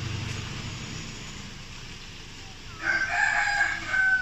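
A rooster crowing once, a call of about a second and a half that starts near the end.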